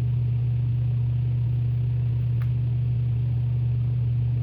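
Steady low hum with one faint click about two and a half seconds in.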